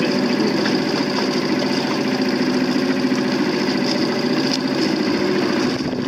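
Motorboat engine running steadily at low speed.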